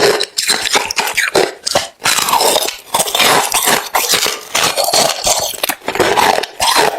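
A person biting and chewing hard, refrozen crushed ice close to the microphone: a dense run of loud, crackling crunches with brief pauses between bites.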